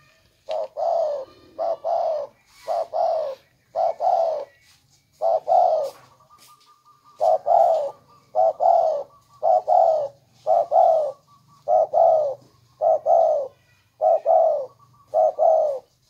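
Caged spotted dove giving its repeated bowing coo, a string of double 'cục-cu' notes about one pair a second with a short pause about six seconds in. This is the greeting coo of a tame cage dove.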